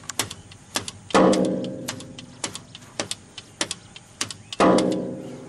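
Rapid, irregular sharp metallic clicks and knocks from the elephant's steel transport crate, with two loud ringing clangs, about a second in and near the end, that die away over about a second.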